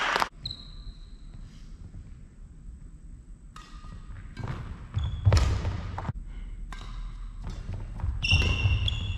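Badminton being played on a wooden sports-hall floor: after a quiet spell, sharp racket hits and heavy footfalls with short shoe squeaks, echoing in the large hall.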